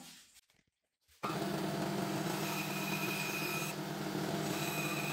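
Bandsaw running and cutting a small plywood block: a steady motor hum with a higher whine that comes and goes as the blade cuts. It starts abruptly about a second in, after near silence.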